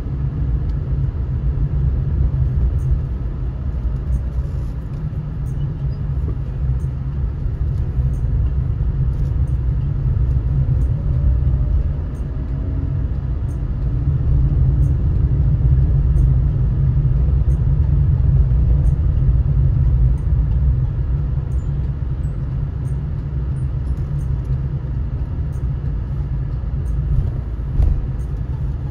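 Car driving on a city road, heard from inside the cabin: a steady low rumble of road and engine noise.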